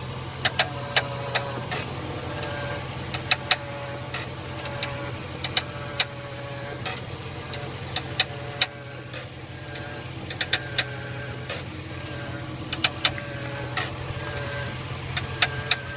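Creaking and sharp clicking from the front end of a lifted 2002 Jeep Grand Cherokee as the steering wheel is turned, with the engine idling steadily underneath. The clicks come irregularly, often several in quick succession, with faint squeaking between them.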